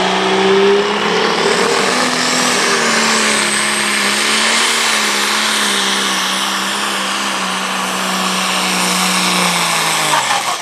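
Super/Pro Stock pulling tractor's turbocharged diesel engine at full power, dragging the weight sled, with a high turbo whine that climbs over the first few seconds and then holds. Near the end the engine note falls away as the pull ends.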